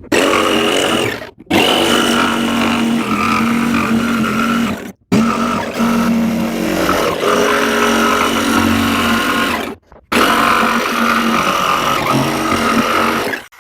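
Power tool cutting a hole through the work table top, its motor whining steadily under load in four runs, cut off briefly about a second in, about five seconds in and about ten seconds in.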